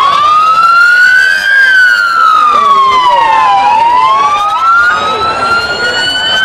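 Vehicle sirens wailing: one siren rises and falls slowly, about two seconds each way, with a second siren overlapping it, over the steady noise of a crowd.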